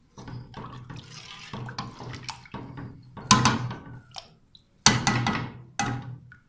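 Water poured cup by cup into a cooking pot of fried biryani masala, splashing in several uneven pours, the loudest about three seconds and five seconds in.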